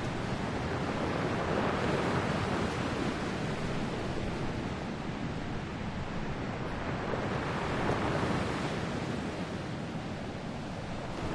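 Sea waves washing against the rocks of a breakwater, a steady surf that swells about two seconds in and again near eight seconds, with wind.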